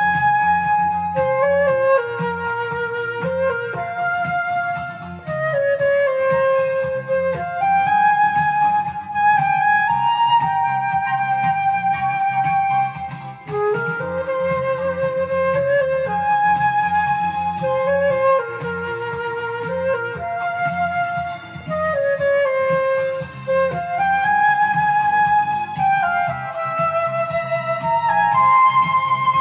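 Silver concert flute playing a slow pop-ballad melody in held, singing notes and stepwise phrases, over a recorded backing track with a steady beat in the bass. It pauses briefly for breath about halfway through.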